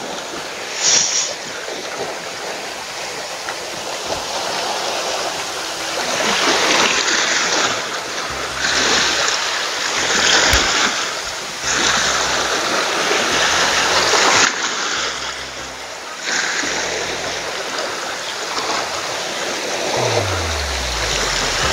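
Small sea waves washing and breaking against a rocky shore, swelling and easing in surges every couple of seconds.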